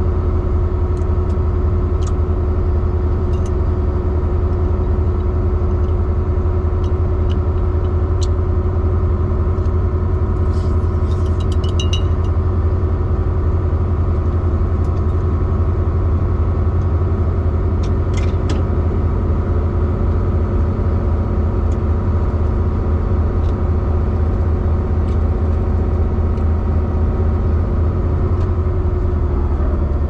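Semi truck's diesel engine running steadily at highway cruising speed, heard from inside the cab as an even low drone with road noise, and a few faint clicks about a third and halfway in.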